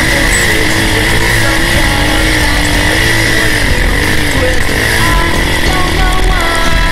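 Single-cylinder four-stroke dirt bike engine running under load up a steep climb, its note wavering up and down with the throttle over heavy riding noise. Music fades in about five seconds in.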